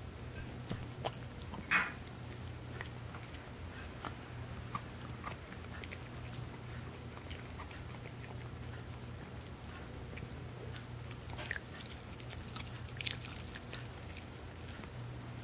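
Small dog gnawing on a bone: irregular wet chewing with scattered sharp crunching clicks, the loudest about two seconds in and a few more near the end.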